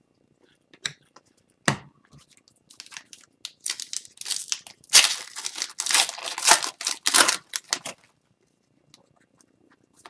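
A hockey card pack's wrapper being torn open and pulled off the cards: a few sharp crackles at first, then about five seconds of crinkling and tearing.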